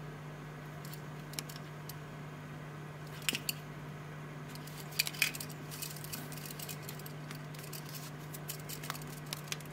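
Light clicks and ticks of a steel watch buckle and leather strap being handled and fastened around a wrist, a few sharper clicks about halfway and a run of small ones near the end, over a steady low hum.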